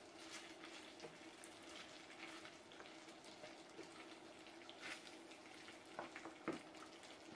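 Faint sizzling of diced chicken breast frying in butter and garlic in a nonstick pan, stirred with a wooden spatula, with a few light scrapes and knocks of the spatula against the pan around five to six and a half seconds in.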